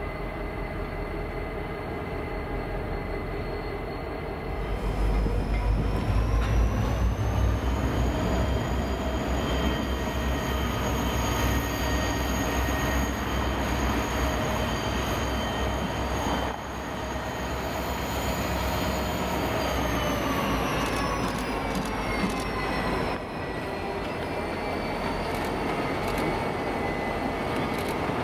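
EMD SD50-2 diesel locomotives, turbocharged 16-cylinder two-stroke engines, working in a rail yard. The engine rumble grows louder about five seconds in, and a high whine rises in pitch with it, holds steady, then falls away again in the last third as the throttle comes back.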